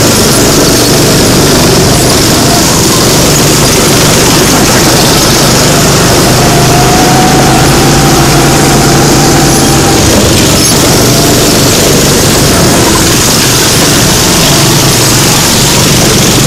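Small single-cylinder go-kart engines running steadily at speed, loud, with a steady rush of noise over them.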